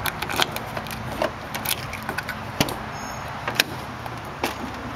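Key working in a Chevrolet Express van's door lock, then the door unlocking and opening: a run of sharp metallic clicks and knocks from the key, lock and latch.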